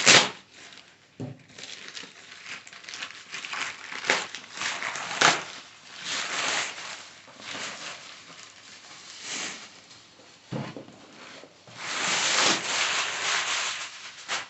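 Plastic mailer bag being slit with a knife, then torn and crumpled as a cardboard box is pulled out of it: irregular crinkling and rustling, with a sharp burst at the start and a louder stretch of crinkling near the end.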